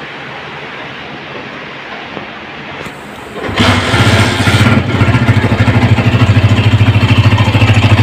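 A Honda CG 125 single-cylinder motorcycle engine starts about three and a half seconds in, then runs with a fast, even pulse. It carries an abnormal noise that the mechanic traces to a loose magneto rotor (flywheel) whose welded cam joint has broken.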